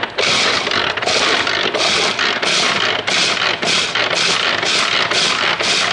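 Manual food chopper crushing Pringles potato chips, its spinning blades making a rhythmic rattling crunch about three strokes a second as the handle is worked.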